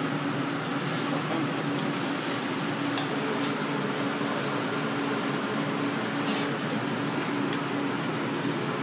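Steady fan-like hum and hiss running throughout, with a few light metal clicks of tongs against a sauté pan as chicken pieces are turned, the clearest two about three seconds in.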